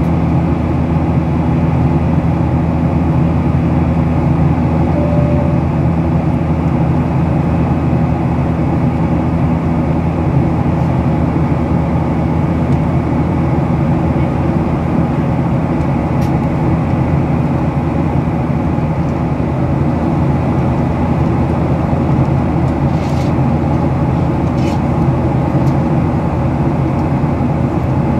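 Steady, loud drone of a jet airliner's turbofan engines heard from inside the cabin, beside the wing engine, as the aircraft climbs after takeoff.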